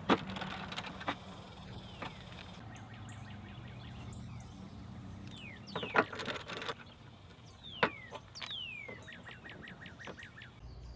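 Birds calling with quick downward-sweeping chirps and a rapid trill near the end, over a thin, high steady tone. A few sharp clicks, the loudest sounds, come at the start and twice in the second half.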